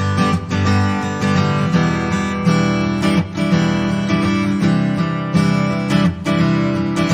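Acoustic guitar strumming chords, with the chords changing every second or two.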